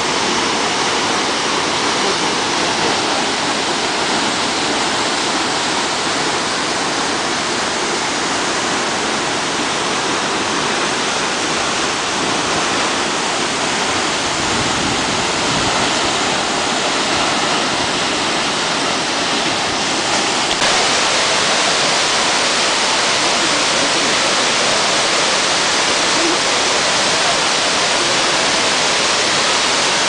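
Loud, steady rush of a waterfall: the 25 m Otodome Falls plunging into its pool, loud enough to drown out speech. About two-thirds through it changes abruptly to the brighter, hissier rush of the wide curtain of Shiraito Falls.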